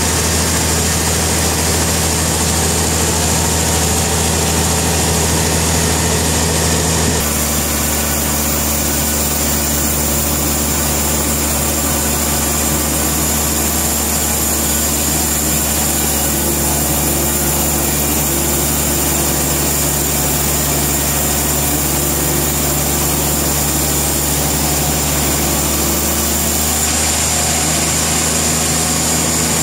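Portable sawmill's engine running steadily, its tone shifting abruptly about seven seconds in and again near the end.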